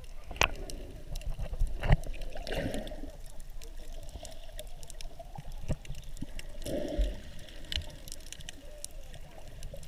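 Water sloshing and gurgling around a camera held just under the surface, muffled as heard underwater. Scattered sharp clicks and a few knocks, the loudest about two seconds in.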